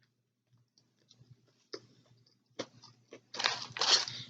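Close-miked mouth sounds of a person eating a crispy Wendy's spicy chicken sandwich: a few soft wet clicks, then loud crunching chews about three seconds in.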